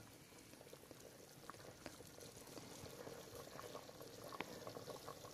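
Faint bubbling and hiss of a metal cooking pot simmering over a fire, with scattered small clicks and crackles.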